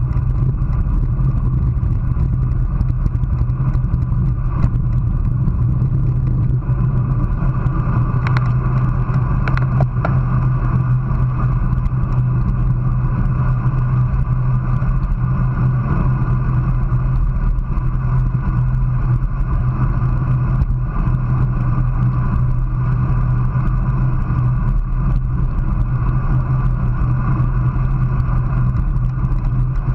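Steady low rumble of wind and tyres on a road bike riding at about 25 mph, picked up by a GoPro camera mounted on the handlebars.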